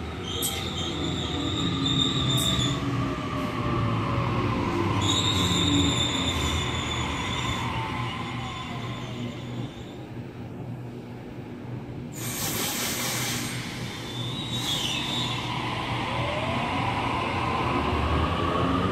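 Sydney Trains Waratah double-deck electric train running through the station: steady wheel-and-rail noise with an electric motor whine that falls in pitch as it slows in the first half and rises again near the end as it gathers speed. Two brief high-pitched squeals come in the first eight seconds.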